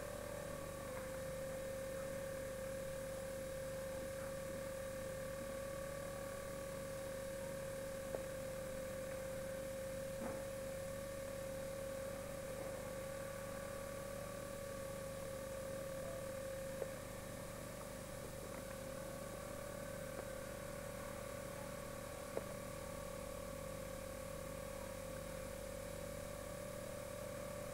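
A steady hum: one held tone with fainter overtones above it, and a few faint clicks scattered through it.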